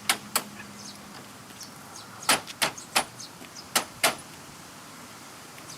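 About seven short, sharp plastic clicks and taps, several in quick pairs, as the truck's grille and bumper trim pieces and their plastic retaining pins are realigned and pushed back into place.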